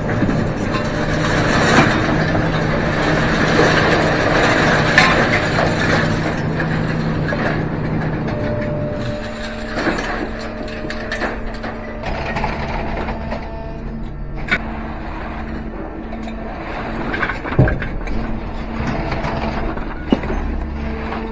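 Rusty scrap iron clanking and knocking as pieces are thrown by hand from a trailer onto a scrap heap, over a steady engine running, whose pitch shifts about nine seconds in.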